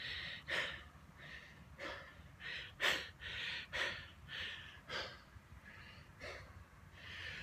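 A man's heavy, rapid breathing, breathless gasps in and out after a steep uphill climb.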